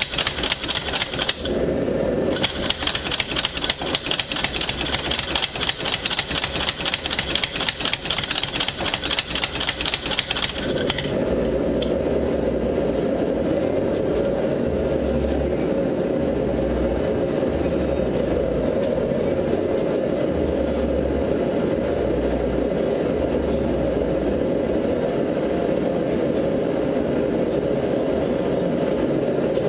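Belt-driven benchtop power hammer striking a red-hot steel bar with rapid, even blows for about the first eleven seconds, then stopping. The drive motor keeps running with a steady hum.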